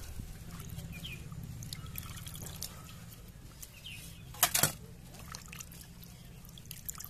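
Hands swishing raw chicken pieces in a steel bowl of water, with splashing and dripping as pieces are lifted out. Two sharp knocks about halfway through, as pieces land in an empty steel bowl.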